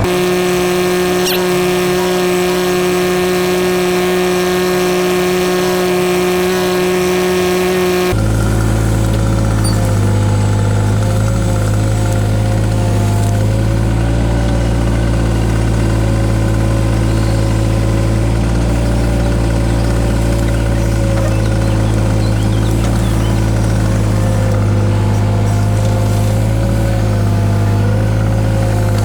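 Takeuchi TB016 mini excavator's diesel engine running steadily. About eight seconds in, the sound changes abruptly to a different steady running note, which wavers slightly in pitch.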